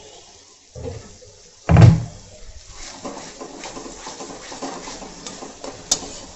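A heavy thump about two seconds in, then a metal spatula stirring and scraping a thick masala that sizzles as it fries in a metal kadhai, with a sharp clink of the spatula on the pan near the end.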